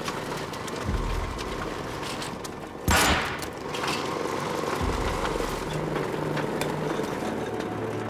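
Small garden wood chipper running with a steady mechanical grind as material is fed into it, with a loud crunching burst about three seconds in.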